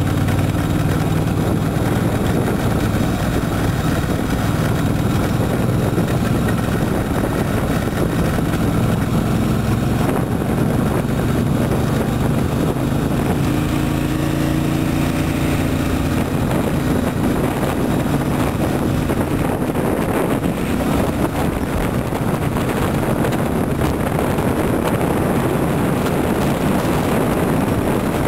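Motorcycle engine running steadily at riding speed, heard from on the moving bike, with wind rushing over the microphone; the engine note is clearest in the first half and the wind noise takes over more in the second half.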